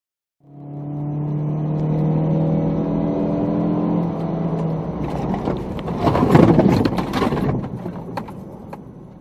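Road vehicle engine drone, then a loud rush of noise with sharp clattering clicks as a large lorry passes very close alongside. The rush peaks about six seconds in and then fades.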